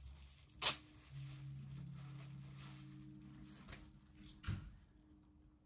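Cardboard packaging being handled: a sharp click a little over half a second in, then faint rustling, and two knocks near the end.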